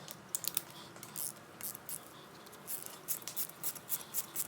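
Short sharp metallic clicks and ticks from hand tools and hardware while ARP head studs are threaded into a Subaru EJ25 engine block. The clicks are sparse at first and come quicker, about three a second, in the second half.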